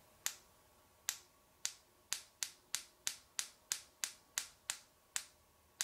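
Sharp point of a steel nail tapping and striking a smartphone's Gorilla Glass screen in a scratch test: about fourteen short, crisp ticks, about a second apart at first and quickening to about three a second.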